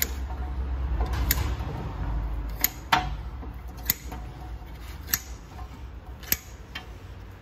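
Brake caliper piston being pressed back into its bore with a piston pusher tool to make room for new pads. Sharp clicks come about once a second over a low hum that fades after about three seconds.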